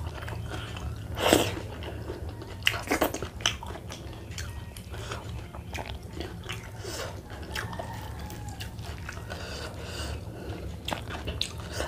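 Close-miked eating sounds: irregular crunchy bites and chewing of fried carp eaten by hand, with one loudest crunch about a second and a half in and a cluster of bites around three seconds, over a steady low hum.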